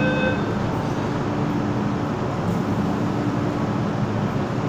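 MTR M-Train (A165/A172) pulling out of the station: a steady rumble of wheels and motors with a faint low hum. A steady high tone stops just after the start.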